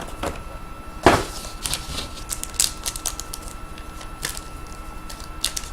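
Trading cards and their packaging being handled on a table: scattered light clicks and taps, with one louder knock about a second in.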